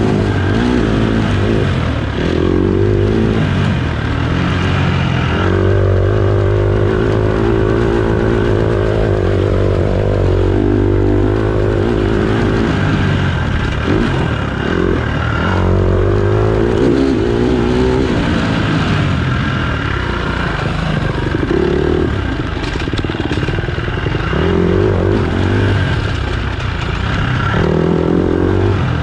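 Dirt bike engines racing, revving up and down over and over, their pitch rising and falling with the throttle.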